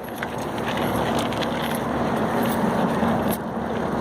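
Motor vehicle passing close: engine and road noise swell over the first second, then hold steady with a low hum.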